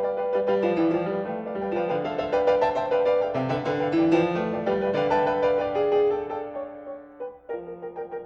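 Background piano music playing a slow melody over held chords; it fades down about seven seconds in and a new phrase starts.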